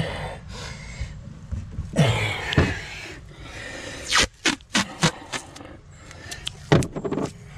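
Masking tape being pulled from the roll and torn off in strips: a longer scraping pull about two seconds in, then a quick run of short sharp rips, with a couple more near the end.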